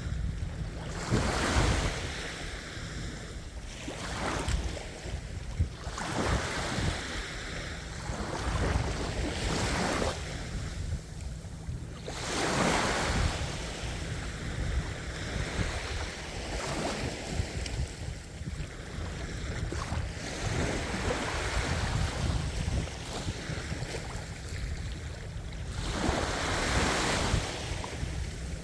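Sea waves breaking and washing onto the shore in repeated swells every few seconds, with wind rumbling on the microphone.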